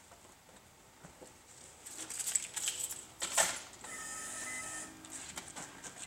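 Car keys jangling and clicking as the key is put into the ignition of a 2007 Infiniti G35 and turned on, followed about four seconds in by a short steady electronic tone from the car.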